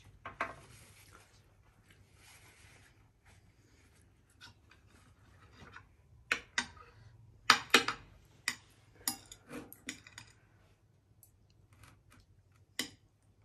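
Metal chopsticks clicking and scraping against a ceramic plate of noodles: a run of sharp clicks, most of them around the middle, with one more near the end.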